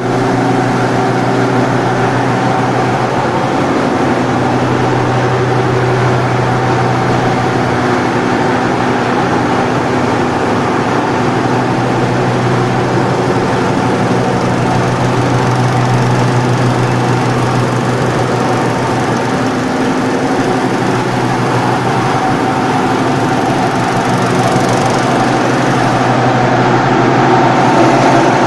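Machinery of a rice dryer plant with a husk-fired furnace running steadily: a loud, continuous drone with several held hum tones over a noisy rush.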